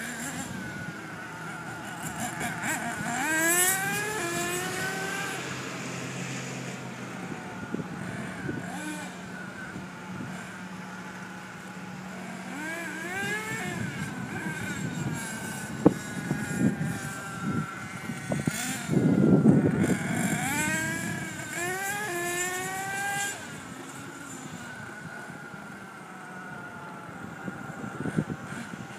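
Small two-stroke engine of an RC truck revving high as the truck runs at speed, its whine rising in pitch over and over as it accelerates. A louder rush of noise comes about two-thirds of the way through.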